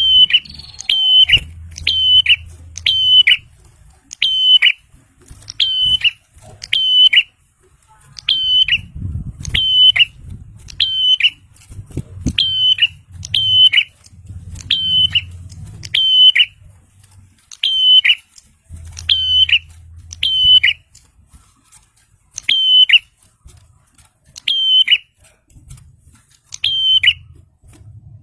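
Bar-winged prinia (prenjak) giving a loud, sharp repeated call: a short high note that drops away at the end, about one a second with a few brief pauses. A faint low rumble comes and goes underneath.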